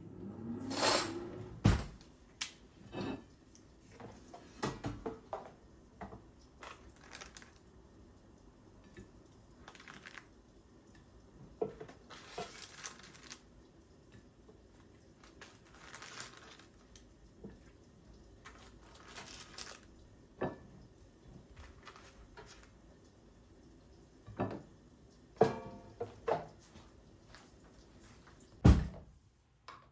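Scattered household handling sounds: occasional knocks and clinks of objects being set down, with a few short rustling swishes; the loudest is a sharp knock near the end.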